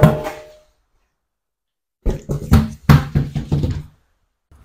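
Hammer blows on a stuck front brake disc to free it from the hub: one ringing metallic blow fading out at the start, then after a pause a quick run of about eight knocks.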